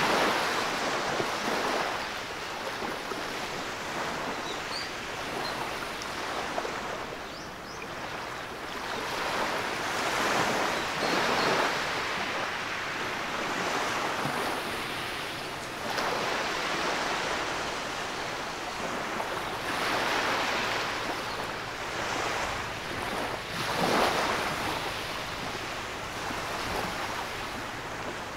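Small waves breaking on a sandy beach and washing up over the sand at the water's edge, the surf swelling and falling back every few seconds.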